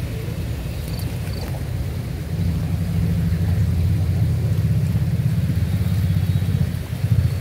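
A low, steady rumble that gets louder about two and a half seconds in.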